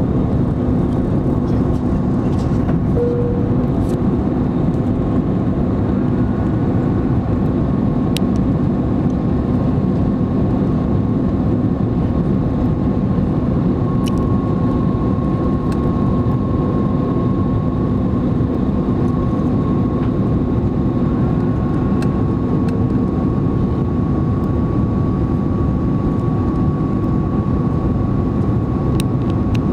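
Steady cabin noise of an Airbus A330 airliner descending on approach, heard inside the cabin by the wing: a constant roar of engines and airflow with a low hum, and a steadier high tone that grows stronger about halfway through.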